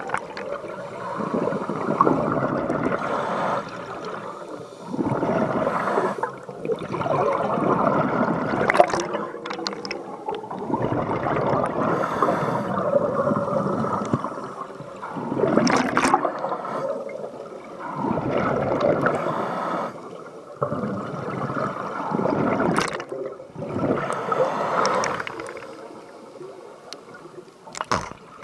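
Scuba diver's regulator breathing heard underwater: bubbling exhalations swelling and fading every few seconds, muffled, with a few small sharp ticks. Quieter near the end.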